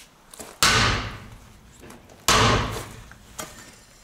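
Two heavy hammer blows on a T-40 tractor's wheel rim, about a second and a half apart, each ringing out for about a second. The tyre is being knocked loose from a rim it has stuck fast to.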